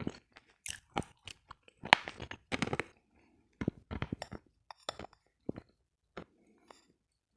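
Close-up crunching and chewing of something crisp, in irregular crackly bites with short pauses between them.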